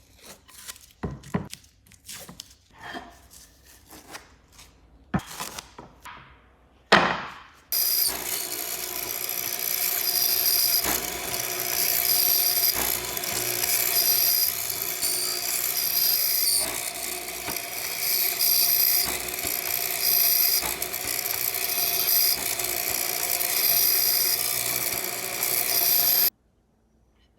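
A few separate hand-tool strokes on wood, then an electric power tool starts and runs steadily at full speed with a steady whine, cutting off suddenly near the end.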